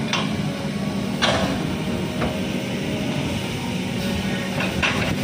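Kobelco hydraulic excavator's diesel engine running steadily as the bucket pushes against an oil palm trunk to topple it. Two sharp knocks stand out, about a second in and near the end.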